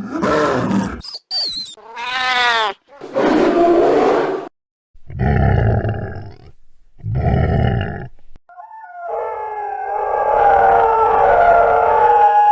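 Werewolf sound effect: a run of short growls and roaring snarls, then about eight and a half seconds in, one long drawn-out howl begins and is held.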